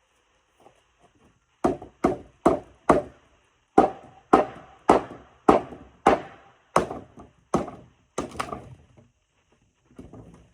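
Hammer striking wood: about a dozen sharp blows, roughly two a second, with a short pause about three seconds in and a few fainter knocks near the end.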